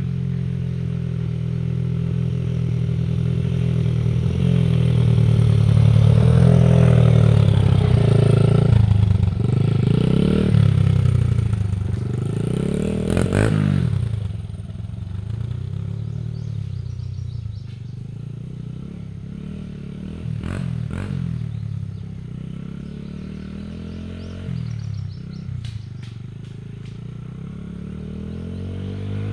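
Honda CRF100F dirt bike's small single-cylinder four-stroke engine running through an aftermarket exhaust tip, its revs rising and falling again and again. It grows louder through the first third, then is fainter, with a few sharp clacks in the second half.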